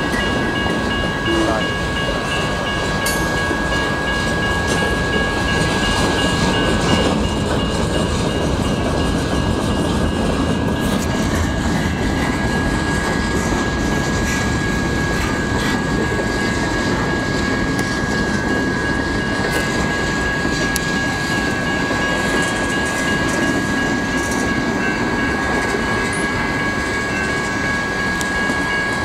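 A freight train's cars rolling steadily past at a grade crossing, with an even noise from the wheels on the rails. Over it, the crossing's General Signals electronic bells ring on with steady high tones.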